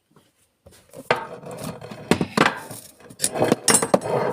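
Irregular knocks and clatter of metal hand tools being picked up and handled, starting about half a second in.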